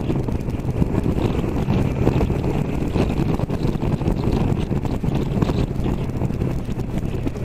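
Wind buffeting the microphone at motorway speed, over the steady running of a Triumph Tiger Sport 660's three-cylinder engine at cruise.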